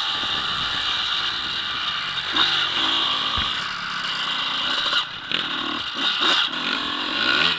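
Dirt bike engine revving and pulling while riding, heard from a helmet camera with heavy wind noise and rattling. The engine note rises and falls, with several brief drops in level a little past halfway.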